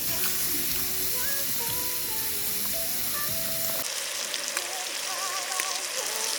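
Background music with a simple stepping melody over a steady hiss; the low rumble beneath drops out abruptly about four seconds in.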